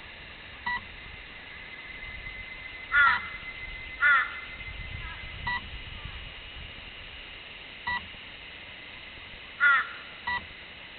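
A short electronic beep repeats about every two and a half seconds, apparently from the crashed RC plane's electronics. Over it a bird caws loudly, twice about three and four seconds in and once more near the end.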